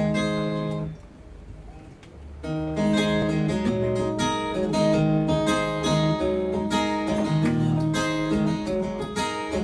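Instrumental opening of a folk song on a strummed acoustic guitar: one chord rings at the start, then after a short pause steady rhythmic strumming sets in about two and a half seconds in.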